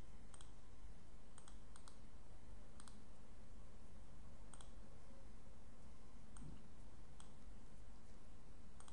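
Sparse, faint clicks of a computer keyboard and mouse, single or in pairs with pauses between, over a steady background hiss.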